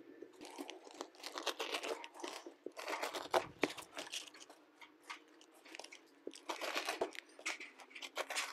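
Utility knife cutting an asphalt roofing shingle: an irregular run of short gritty scrapes and tears as the blade is drawn through the granule-coated mat, with a quieter stretch in the middle.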